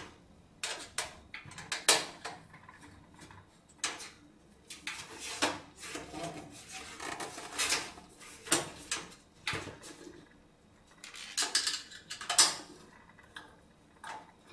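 Screwdriver loosening screws on the back of a steel computer case, with irregular metal clicks, scrapes and knocks as the screws are turned out and the case is handled.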